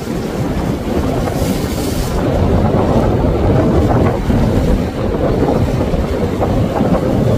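Wind buffeting the microphone over surf washing against jetty rocks: a loud, steady, low rumble, with a short hiss about a second and a half in.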